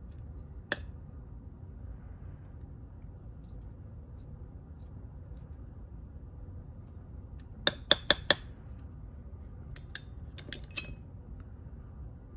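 Small metal padlock parts clinking sharply against a hard surface during disassembly: a single clink early, a quick run of four louder clinks about two thirds of the way through, then a few softer ones, over a low steady hum.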